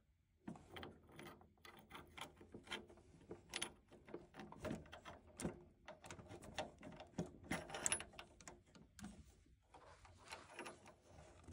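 Faint, irregular small metallic clicks and scrapes: a copper hot water pipe being pushed into place and its brass union nut lined up and twisted by hand onto a threaded fitting.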